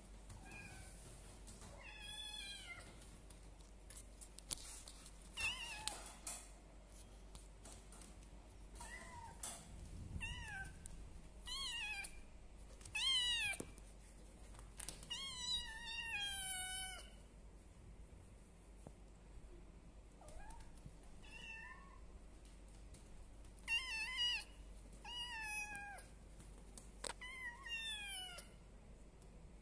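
A kitten meowing again and again: about a dozen high calls that fall in pitch, some coming in quick pairs, with a longer wavering call about halfway through.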